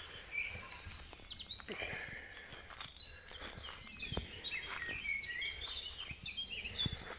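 Small songbirds singing and chirping, with a fast high trill of about a dozen quickly repeated notes around two seconds in.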